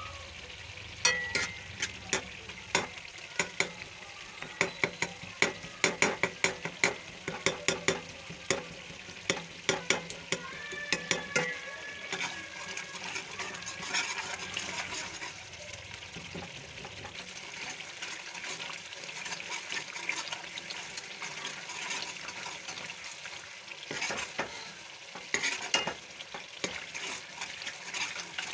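Spiced tomato masala frying in a pan with a steady sizzle. A spoon stirs it, and many sharp clicks and pops fill the first half, with a few more near the end.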